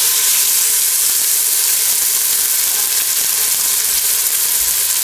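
Chicken breast sizzling in hot olive oil in an Instant Pot's stainless steel inner pot on high sauté: a steady frying hiss as the meat sears.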